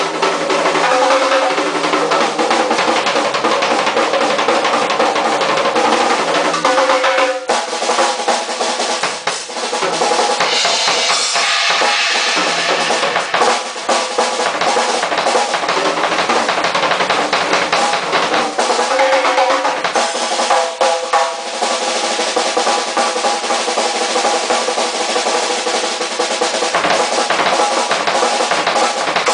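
Drum kit played continuously and busily, with snare rolls and bass drum strokes. A burst of cymbal playing comes about ten seconds in and lasts a few seconds.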